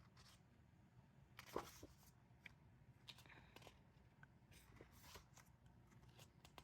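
Near silence with faint, scattered rustles and light ticks of photobook pages being handled and turned, one slightly louder rustle about one and a half seconds in.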